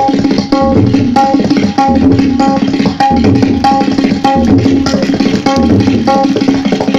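Tabla played in a fast, steady rhythm that imitates a train heard from inside the carriage. A ringing treble-drum stroke falls about every half second over a rolling pulse of deep bass-drum strokes.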